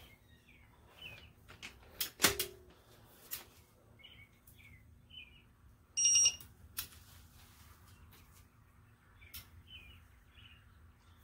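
Digital torque wrench and socket clicking on a cylinder-head bolt of a Chrysler 383 big-block, with a short electronic beep about six seconds in as the wrench reaches its set torque.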